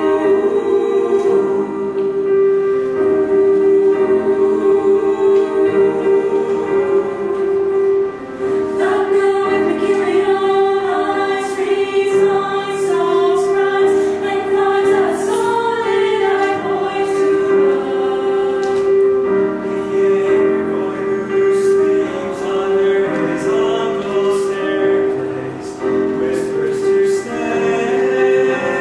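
Small mixed youth choir singing in harmony over a steady held note, the words growing clearer from about nine seconds in.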